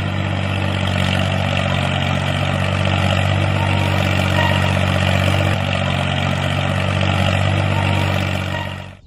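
Tractor diesel engine running steadily with an even low throb, fading out near the end.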